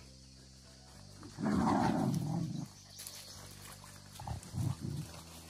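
An animal vocalizing: one loud, rough call lasting about a second just after the start, then two short calls near the end.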